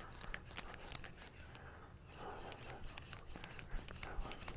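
R2/SG2 powdered-steel bunka knife stroked back and forth on a 3000-grit water stone. Faint rasping scrapes come in repeated passes, with small clicks as the blade moves.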